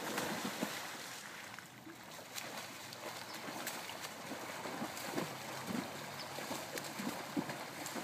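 Several swimmers splash into the pool on a racing dive, followed by continuous splashing of their butterfly strokes through the water.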